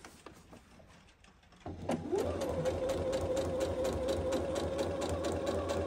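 Electric domestic sewing machine starting up about two seconds in, its motor whine rising then holding steady, with a rapid even ticking of the needle as it sews a topstitch at a lengthened stitch.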